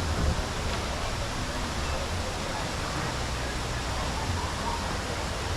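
Steady wash of ocean surf with a low rumble underneath, and faint voices of people mixed in.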